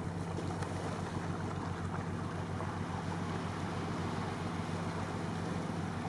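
Seaside wind and surf: a steady rushing noise, with a low steady hum underneath.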